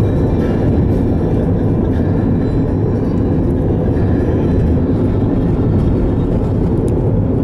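Steady low rumble of a car driving along the road: tyre and wind noise from the moving vehicle, without a break or change.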